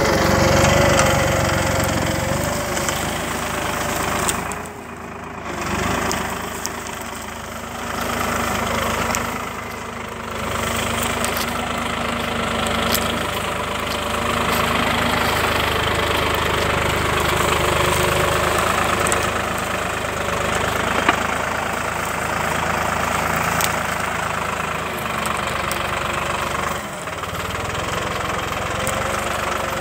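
Başak tractor's diesel engine running steadily under the load of a plough, dropping away briefly about five seconds in and again near ten seconds.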